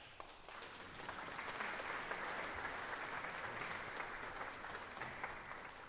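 Concert audience applauding. The clapping swells in about half a second after the start and begins to thin out near the end.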